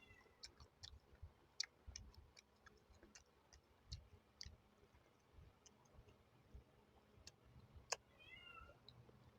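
Close-miked eating sounds: scattered sharp clicks and crunches of chewing. A short high squeaky call comes right at the start and again about eight seconds in.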